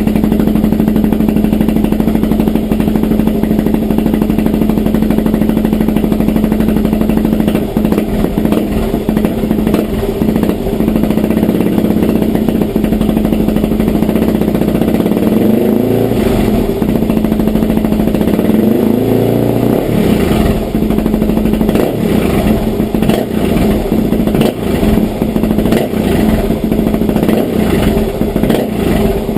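Suzuki DR-Z400SM single-cylinder four-stroke engine running through a full FMF exhaust. It idles steadily for the first half, then is revved up a few times from about halfway through before settling back.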